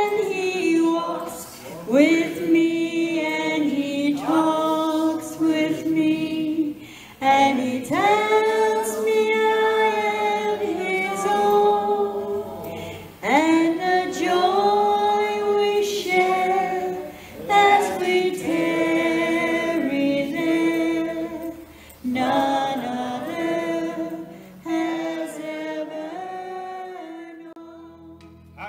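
A woman singing solo and unaccompanied into a handheld microphone, amplified through a PA, in phrases of a few seconds each. The last phrase fades away near the end.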